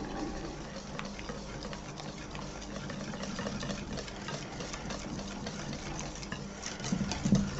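Steel balloon whisk beating thick cream cheese frosting in a stainless steel bowl: a rapid, steady run of ticks and scrapes as the wires strike and drag against the bowl.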